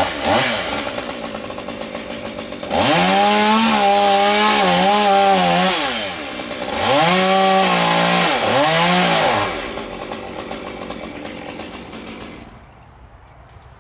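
Chainsaw engine revved up to full speed twice, each time for about three seconds, and dropping back to a lower idle in between and afterwards.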